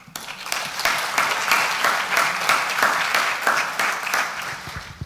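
Audience applauding after a speech, a dense patter of many hands clapping that begins right away and dies down near the end.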